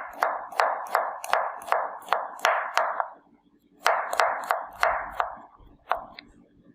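Knife chopping on a cutting board in quick, even strokes, about three a second, in two runs with a short pause between, then two last single chops.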